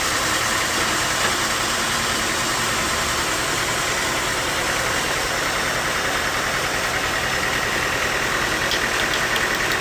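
Sawmill machinery running steadily, a dense mechanical noise with a faint high whine that grows a little stronger partway through.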